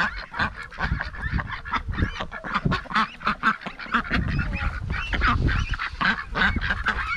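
A flock of poultry calling as feed is scattered to them: many short, overlapping calls, one after another.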